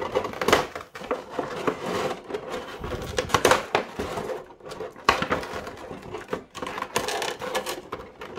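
Clear plastic blister tray and plastic bag crinkling and crackling as they are handled, with irregular sharp clicks and rustles.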